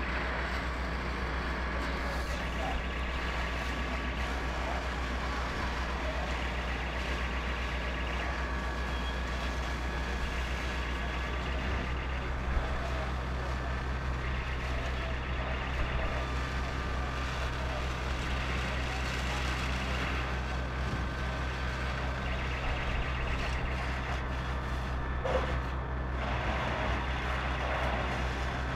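Fire engine's diesel engine running steadily as it drives the pump feeding the hoses, a constant low drone with a second low tone joining about twelve seconds in. Faint steady high tones come and go over it.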